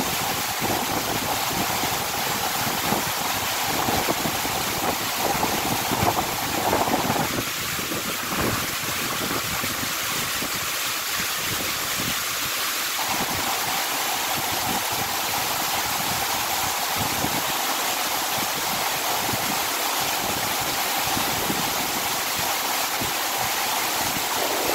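Torrential monsoon-style downpour: heavy rain falling steadily as an even, loud hiss on paving and garden plants.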